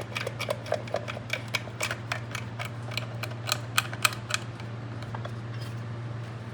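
Hand tool clicking and tapping against metal engine parts during stripping, about four quick clicks a second, stopping after four seconds or so, over a steady low hum.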